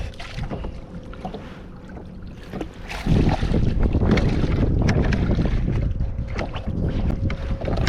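Wind rumbling on the microphone out on open water in a kayak, growing louder about three seconds in, with scattered small knocks and clicks and a faint steady hum underneath.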